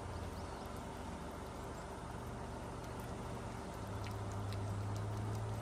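Engine of a grass-cutting machine running steadily; about four seconds in its hum drops slightly in pitch and grows a little louder.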